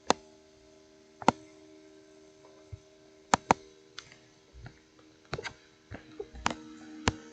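Computer mouse clicking: about nine short, sharp clicks at irregular intervals, twice in quick pairs, over a faint steady hum.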